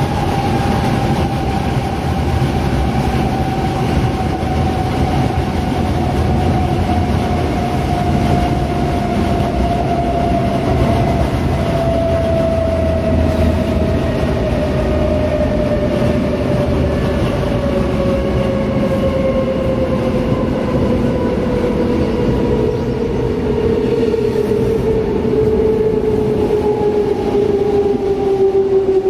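Inside a DB Class 420 S-Bahn electric multiple unit, the traction motors' whine falls slowly and steadily in pitch over the low rumble of wheels on rails as the train slows toward a station.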